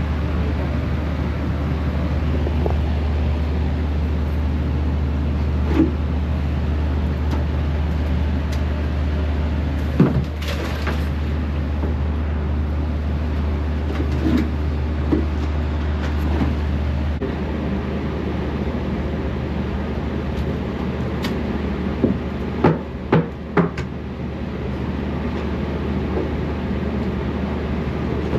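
Steady low machine hum with scattered knocks and clunks; the hum eases about two thirds of the way through, and a quick run of four knocks comes near the end.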